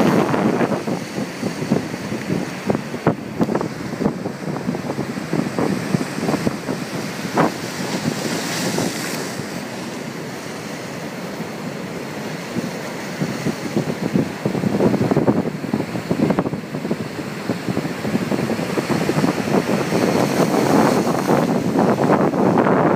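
Hurricane swell breaking as surf, a steady rushing wash of waves with wind gusting on the microphone. Louder near the start, easing off in the middle and building again near the end.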